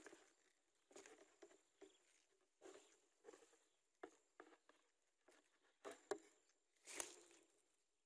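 Faint, irregular rustling and light taps of dry grass and nest material, with a louder rustle about seven seconds in.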